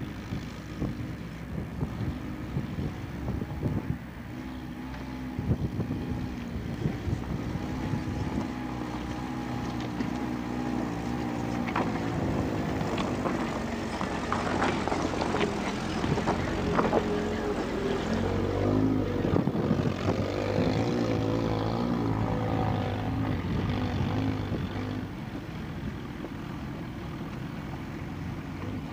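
An off-road 4x4's engine running under changing load, its pitch rising and falling. A cluster of sharp knocks and clatter comes in the middle.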